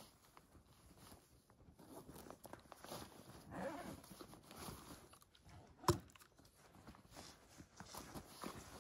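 Faint rustling of backpack fabric and small clicks of gear being taken out of the pack, with one sharp knock about six seconds in.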